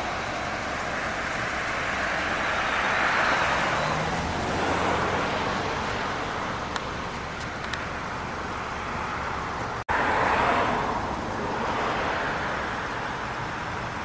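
Road traffic: cars passing one after another, the sound of their tyres and engines swelling and fading twice, about three seconds in and again about ten seconds in.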